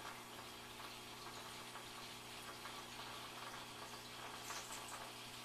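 Aquarium powerhead with a venturi air intake running, drawing in air and spraying fine bubbles into the tank: a steady fizzing hiss with faint crackles over a low, even motor hum.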